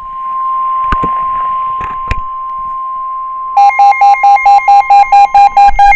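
NOAA Weather Radio's 1050 Hz warning alarm tone, a steady high tone over radio hiss with a couple of clicks. This is the alert that comes before a new warning message. About three and a half seconds in, a pulsed electronic alarm joins it, beeping about five times a second.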